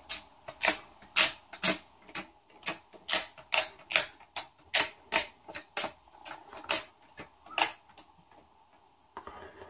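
Dust-removal sticker dabbed repeatedly on a phone's glass screen, a sharp tacky click with each dab, two to three a second, stopping near the end.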